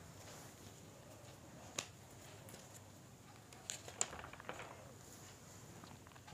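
Large tailoring scissors cutting through folded fabric, faint and soft, with a few sharp clicks of the blades, the loudest about four seconds in.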